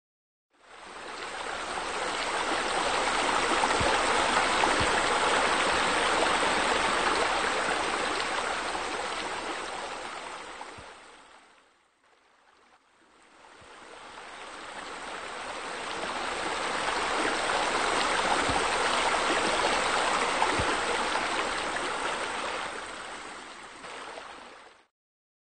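Steady rush of running water that fades in, fades down almost to nothing about halfway through, then swells again and stops shortly before the end.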